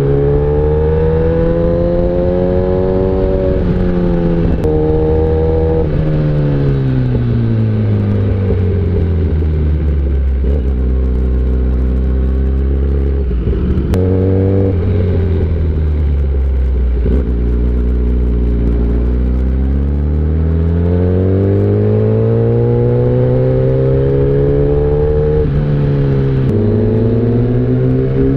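1000 cc inline-four superbike engine revving up and down through the gears: rising at first, a quick run of downshifts with throttle blips about four to six seconds in, dropping to a low steady pull in the middle, another blip about halfway through, then winding up again with a shift near the end.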